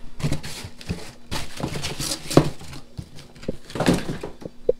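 Handling of a cardboard box and its packaging on a bench: irregular rustles, taps and knocks, the loudest about halfway through and again near the end.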